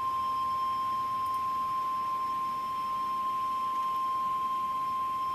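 NOAA Weather Radio 1050 Hz warning alarm tone: one steady, unbroken high beep over faint radio hiss. It signals that a weather warning message is about to follow.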